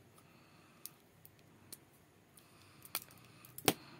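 A few short, sharp clicks of small hand tools working on an RC car battery's wire connector as its old wires are taken off; the loudest click comes near the end.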